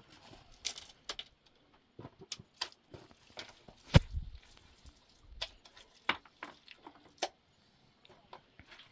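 A series of irregular sharp knocks and clinks, some a second or more apart, the loudest a heavy knock about four seconds in.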